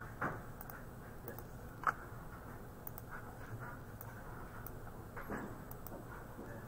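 A computer mouse clicking a few times, the sharpest click about two seconds in, over faint steady room noise.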